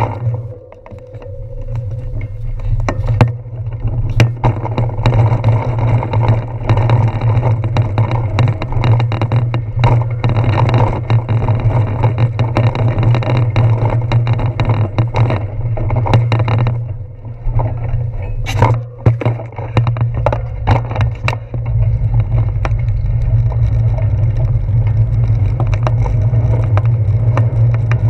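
Ride noise from a handlebar-mounted GoPro Hero 4 on a moving bicycle: a steady low rumble of tyre, wind and handlebar vibration, broken by frequent knocks and rattles as the bike goes over bumps in the road. It eases off briefly about two-thirds of the way through.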